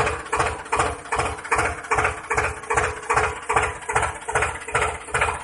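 Tractor engine idling sound, a steady chug of about three beats a second over a constant hum.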